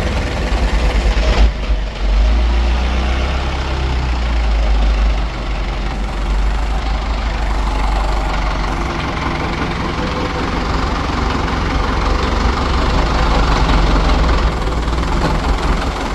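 Kia truck engine running steadily at idle, with a deep rumble.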